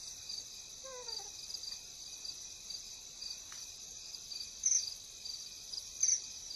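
Crickets chirping in a steady, quiet night chorus, with two louder high chirps near the end.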